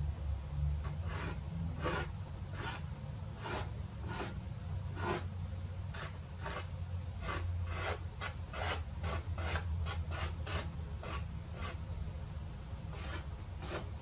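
Soft pastel stick rasping across pastel paper in a series of short strokes, about one or two a second at first and quickening to three or four a second in the middle, as strips of dark blue reflection are laid in.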